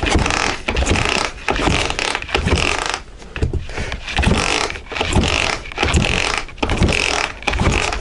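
Dnepr K-650 flat-twin motorcycle engine being cranked over by hand during a compression test, with a rhythmic burst of mechanical churning about once a second. The cylinder under test builds only about two atmospheres, low compression for a worn engine.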